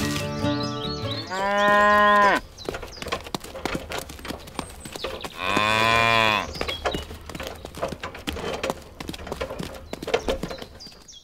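Cattle mooing twice, each a drawn-out call of about a second, the second starting about four seconds after the first. Small clicks and taps patter between and after the calls.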